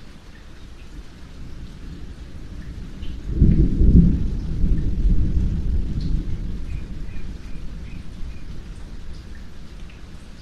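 Steady rainfall with scattered drops, and a roll of thunder that builds, cracks loud about three and a half seconds in, then rumbles away over several seconds.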